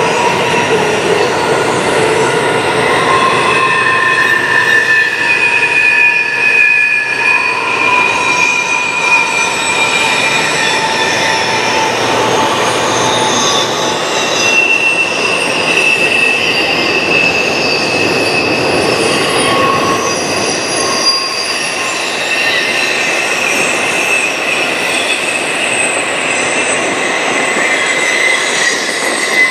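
Double-stack container freight train rolling past with steady heavy rolling noise. Its steel wheels squeal in several sustained high-pitched tones that swell and fade, one after another, as the cars go by.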